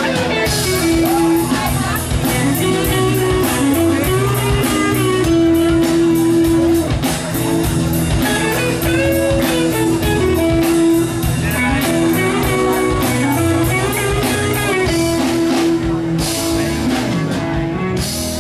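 Live band music: an electric guitar playing long held, bending notes over a drum kit keeping a steady beat.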